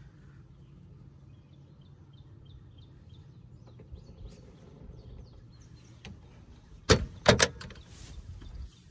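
Handling noise from a camera being set down and propped on the ground: a few light rubs, then two or three sharp clacks close together about seven seconds in, over a faint low hum.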